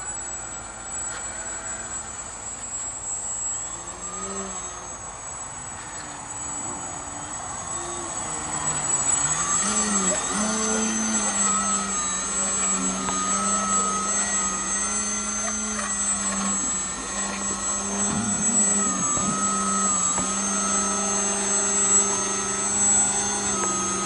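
Small electric RC motor and propeller whirring with a high whine, its pitch wavering up and down as the throttle changes, getting louder about nine seconds in.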